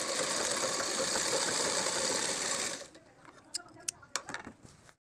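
Sewing machine stitching at a steady fast run for about three seconds, then stopping, followed by a few sharp clicks; the sound cuts off abruptly near the end.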